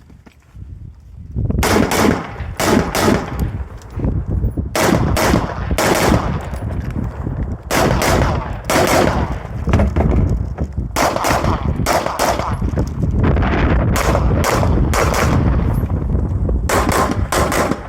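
Rapid gunshots in fast strings of several shots a second, fired in about six bursts with short pauses between them during a practical shooting stage.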